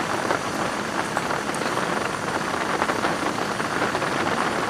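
Heavy rain falling steadily, a dense hiss made of countless small drop impacts.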